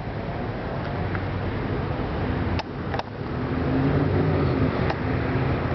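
A car engine running steadily, a little louder and stronger from about halfway through, with a few sharp clicks over it.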